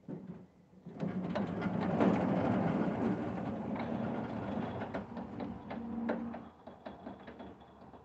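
The sawhead of a Woodland Mills HM126 manual sawmill being pushed by hand along its steel track rails, rolling and rattling with many small clicks and knocks for about five seconds, then stopping.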